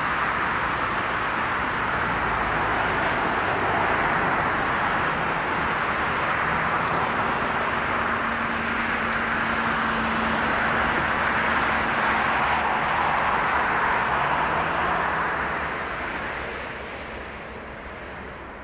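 Boeing 747-400 landing: the steady jet rush of its four Pratt & Whitney PW4056 turbofan engines, fading over the last few seconds.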